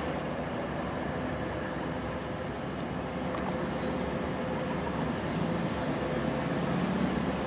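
Distant running of an Alstom diesel-electric locomotive hauling a container freight train as it approaches, a steady rumble that grows slightly louder toward the end.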